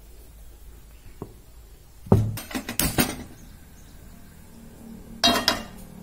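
Kitchen clatter in two bursts of sharp knocks and clinks, about two seconds in and again near the end. The second burst is a nonstick frying pan being set down on a gas stove's metal burner grate.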